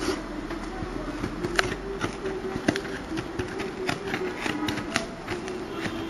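Scissors cutting into the packing tape and cardboard of a parcel: irregular snips and clicks, several a second, over a steady low hum.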